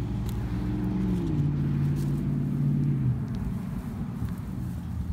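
A motor vehicle passing close by: its engine drone drops in pitch about a second in as it goes past and fades away after about three seconds, over a steady low traffic rumble.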